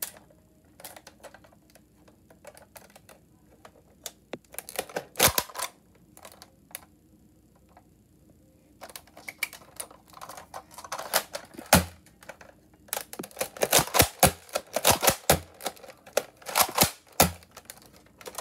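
Sharp plastic clicks and clacks of a toy Nerf pistol being handled and its slide worked back and forth, scattered at first, then in busy runs about five seconds in and through the second half.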